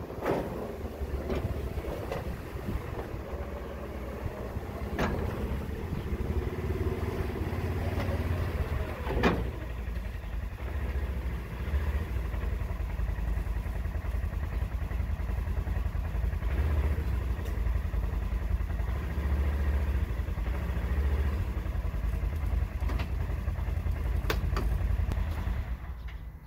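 2020 Polaris Ranger Crew side-by-side's engine running steadily at low speed as it is eased up onto a trailer, with a few sharp knocks along the way.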